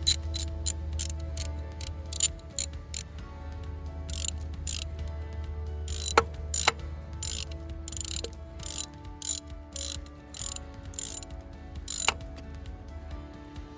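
Background music with a fast, ticking hi-hat pattern over a deep, steady bass and shifting synth notes.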